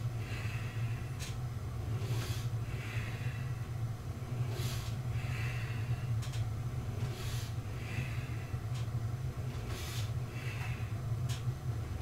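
A man breathing hard in a steady rhythm through exercise repetitions, a sharp exhale and an inhale about every two and a half seconds, with a faint click once per cycle. A steady low hum runs underneath.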